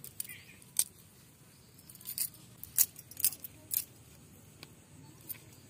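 Small fish being cleaned by hand with wood ash: scattered sharp clicks and light scraping as fingers rub and pinch the fish, about six clear clicks in all.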